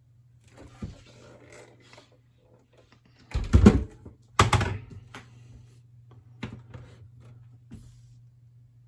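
Plastic clunks and clicks of a Panasonic RX-DS620 boombox being handled as its detachable speaker is unlatched and lifted off: a light knock, then two loud thumps about a second apart, then a few small clicks.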